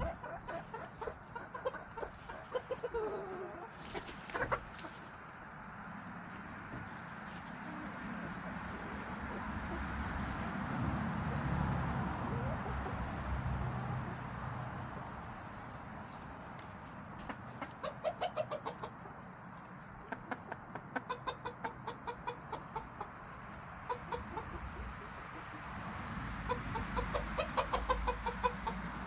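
Cochin bantam hens clucking, in runs of quick, short clucks that come and go, busiest in the second half.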